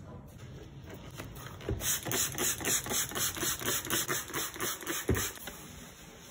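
Trigger spray bottle squeezed over and over into a stainless steel sink, a quick run of hissing squirts about four a second, then a single thump near the end.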